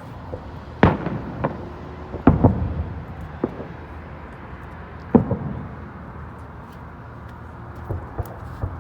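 Fireworks going off: a series of sharp bangs with echoing tails. The loudest comes about a second in, two follow close together just past two seconds, another comes at about five seconds, and fainter pops fall between.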